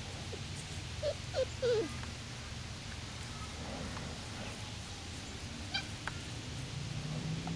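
Samoyed puppy whimpering: three short, high, wavering whines in quick succession about a second in, over a steady low background hum.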